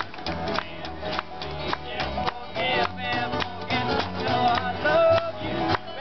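Acoustic string band playing a tune in a steady, upbeat rhythm: banjo, fiddle and acoustic guitars over a plucked upright double bass.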